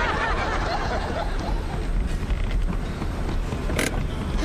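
Car engine running with a steady low rumble, with a single sharp click near the end.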